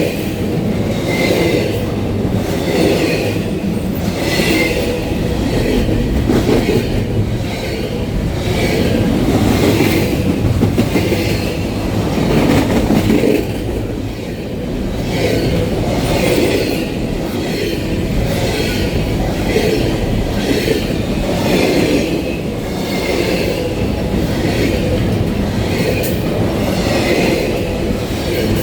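Freight train cars rolling past, a steady rumble with a regular clickety-clack of wheels over rail joints.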